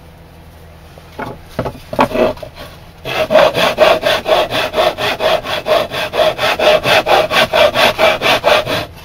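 Hand tool rasping back and forth on a workpiece. A few separate strokes come first, then from about three seconds in a steady run of about three strokes a second.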